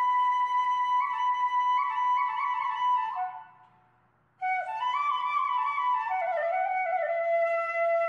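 Background instrumental music with a single melody line. It fades out about three seconds in, and a second tune starts abruptly about a second later.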